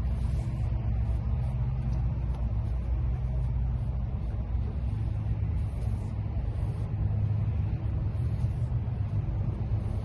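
A steady low rumble.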